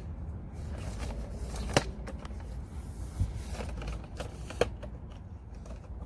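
Handling noise from the camera being lowered and repositioned: a few sharp clicks and knocks, the loudest about two seconds in, with a dull thump about three seconds in, over a low steady rumble.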